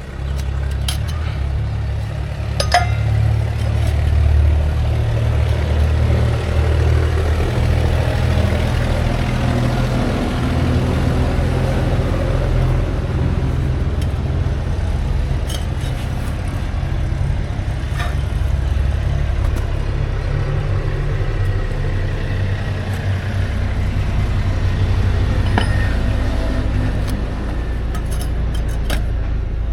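Workshop noise: a steady low rumble with a handful of sharp metallic clinks from tools and parts, scattered through it and clustered near the end.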